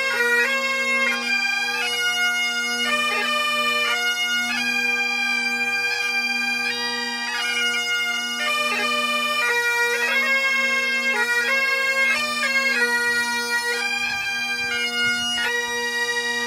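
Bagpipes playing a tune: a quick melody of short notes over steady, unchanging drones.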